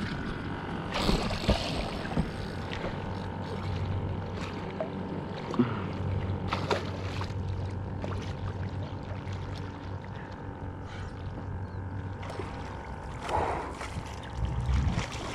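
Water lapping and sloshing against a stand-up paddleboard hull, with a few short, sharper noises scattered through it.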